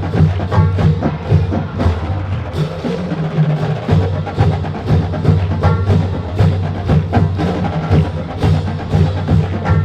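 Marching band playing: low brass holding notes over a drumline beat with many sharp, regular clicks.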